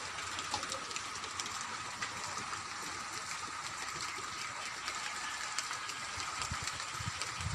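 Steady outdoor hiss with a faint high steady tone and a few small clicks, and low rumbles near the end.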